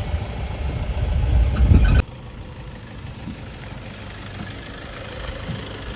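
Safari jeep's engine running with a low rumble that grows louder over the first two seconds, then cuts suddenly to a quieter, steady idle.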